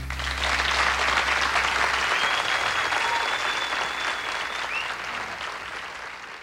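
Studio audience applauding at the end of a song, the band's last low note dying out about two seconds in. A long, steady whistle rings out over the clapping in the middle, and the applause fades toward the end.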